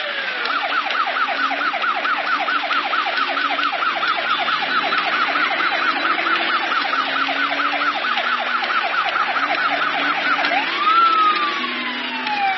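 Police car siren in its fast yelp, sweeping up and down about four to five times a second. About eleven seconds in it switches to a slow wail that rises and then falls away.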